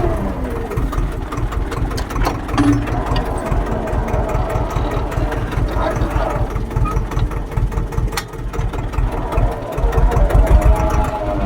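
Tractor engine running steadily, its pitch dropping right at the start as it slows.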